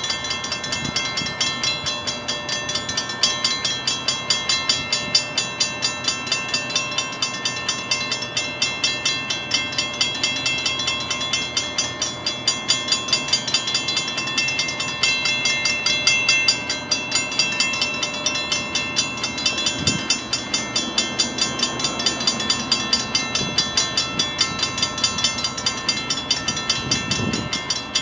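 Railroad grade-crossing warning bell ringing in fast, even strokes, the signal that a train is approaching and the crossing is active.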